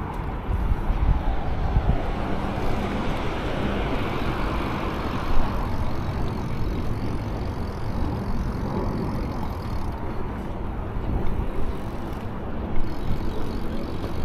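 Wind buffeting the microphone and tyres rolling on pavement as a Redline BMX bike is ridden, with two brief knocks, about five seconds in and near the end.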